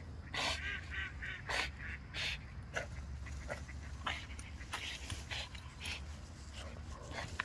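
Pit bull making a quick run of short, high yelps, about a dozen in a row, over a steady low rumble.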